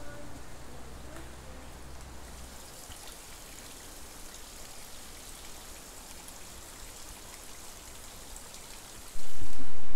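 Water trickling and dripping down a wet rock face, a steady pattering noise. About nine seconds in, a much louder noise cuts in suddenly.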